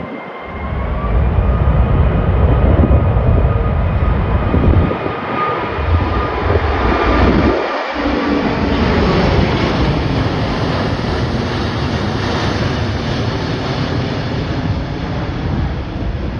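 Jet airliner engines passing close by: a loud, steady rumble with a faint high whine that rises about a second in. Gusty wind buffets the microphone throughout.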